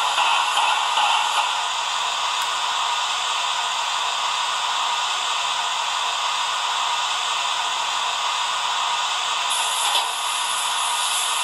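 Sound decoder of a model BR 10 steam locomotive standing still, playing a steady hiss of steam through its small speaker.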